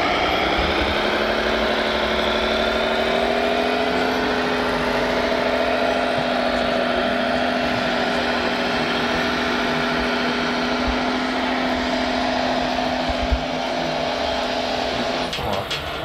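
Radio-controlled scale Volvo articulated dump truck driving with a load of soil, its motor sound rising in pitch over the first few seconds and then holding steady. Near the end it breaks off and a few sharp clicks follow.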